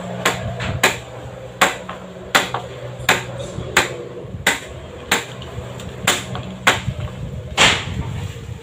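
Footsteps while walking, a run of sharp slaps about every two-thirds of a second. A steady low hum runs under the first half and fades out about halfway through.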